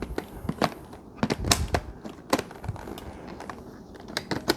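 Irregular hard plastic clicks and knocks from a Eureka Elivate cordless stick vacuum being handled, its dust bin being fitted and the machine being set upright.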